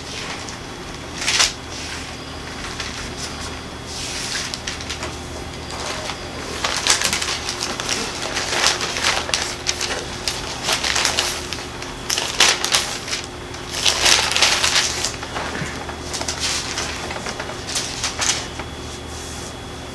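Bible pages being leafed through, with papery rustling and crinkling in a run of short bursts that is busiest from about seven to fifteen seconds in.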